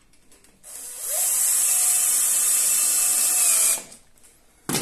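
Cordless drill-driver running for about three seconds, driving a long screw into a pool table's wooden cushion rail until it is nice and tight; its pitch rises as it spins up and it stops abruptly. A short sharp knock comes near the end.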